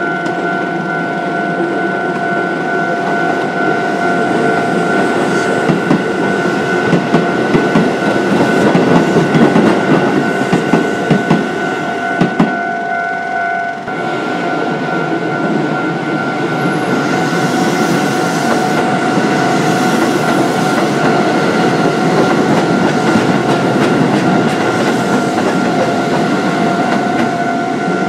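Japanese level-crossing alarm ringing steadily as a Keisei Line electric train rumbles over the crossing, its wheels clicking over the rail joints in the first half.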